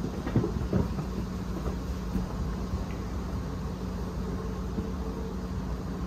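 Steady low rumble with a faint steady hum, and a few light knocks in the first second.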